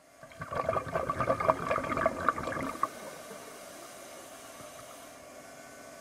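A diver's exhaled breath bubbling and crackling underwater for about three seconds, then a steady underwater hiss.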